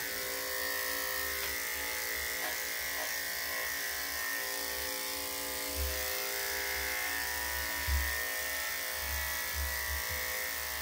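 Corded electric dog clippers running with a steady hum while trimming a dog's damp coat, with a few soft low bumps.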